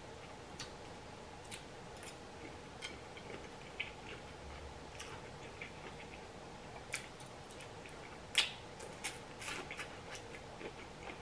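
Close-miked eating: wet chewing and lip smacks as a person eats chicken and shrimp, heard as scattered soft clicks, with the loudest smack about eight seconds in and a quick run of them just after.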